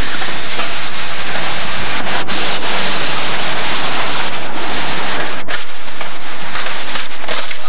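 Skateboard wheels rolling on concrete, a loud steady rushing noise on a camcorder soundtrack, with a few brief dips.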